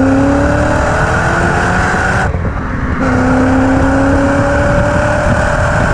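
Volkswagen Passat W8's 4-litre W8 engine accelerating hard, its pitch climbing steadily, breaking off briefly for a gear change a little over two seconds in, then climbing again from lower revs, over steady road noise.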